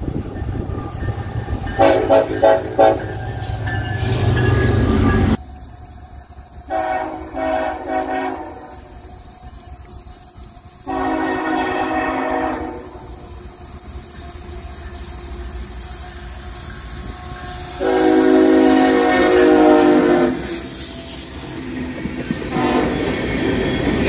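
Diesel freight locomotives sounding their air horns in a series of short and long blasts, with the rumble of the passing trains between the blasts. The series is split by an abrupt cut a few seconds in.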